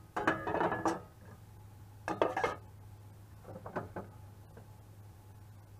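Metal cookware clattering: a stainless steel jug and spoon clinking as they are handled and set down on a gas stove, in three short bursts, over a steady low hum.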